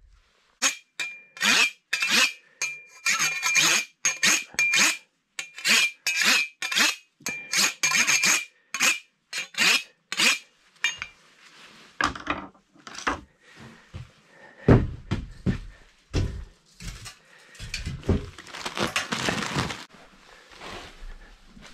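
A long insulation knife sawing in quick back-and-forth strokes, about two a second, the metal blade giving a thin ringing note. About eleven seconds in this gives way to dull thumps and rustling as mineral wool batts are handled and pressed in between the floor joists.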